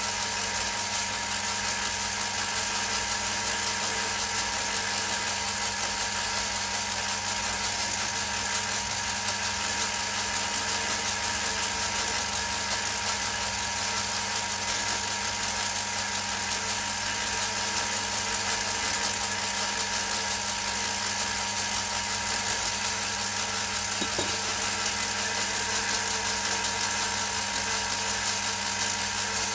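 Old belt-driven metal lathe running steadily, its chuck and workpiece spinning: a constant hum with a thin steady whine over a mechanical hiss.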